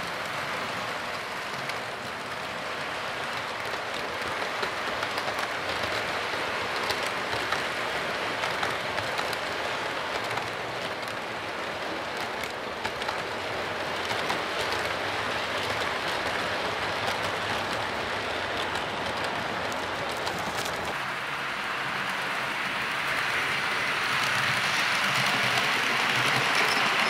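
HO-scale model train running past: the metal wheels of the coaches rolling along the track with a steady rattle and many small clicks. About three quarters of the way through it gets louder and brighter.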